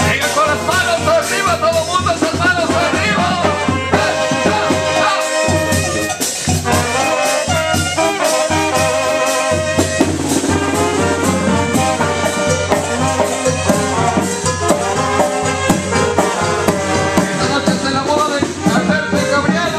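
Live brass band playing Latin dance music: trombones and trumpets over a steady beat.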